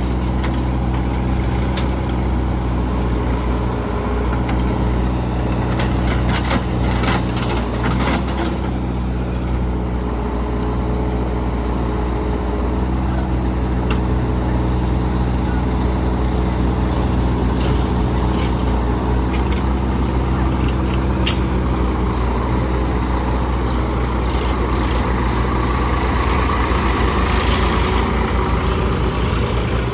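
Heavy diesel engines running steadily, from a JCB 3DX backhoe loader loading mud beside a tractor. A cluster of metallic clanks and rattles comes about six to eight seconds in, with a few single knocks later.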